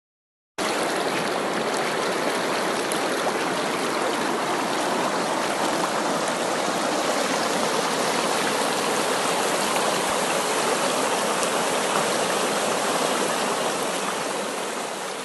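Steady rush of flowing water, like a fast stream or runoff. It starts abruptly about half a second in and fades out near the end.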